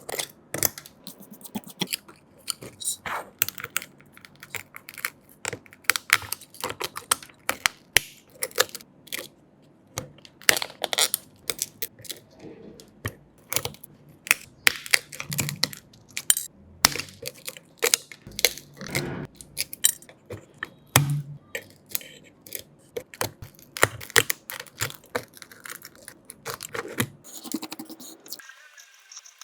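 Small repair tools clicking, tapping and scraping against an iPhone 12 Pro Max during its cracked back glass repair, with irregular sharp clicks several times a second.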